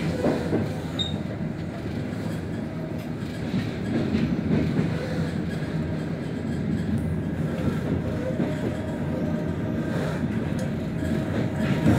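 Steady rumble of a moving passenger train heard from inside the coach: wheels running on the rails, with occasional knocks from the track.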